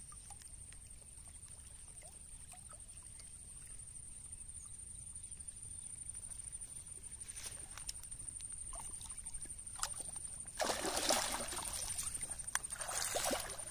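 A hooked rohu splashing and thrashing at the water's surface in the shallows, in two bursts of splashing near the end, after a stretch of little but low rumble and a few small clicks. A thin steady high whine runs underneath.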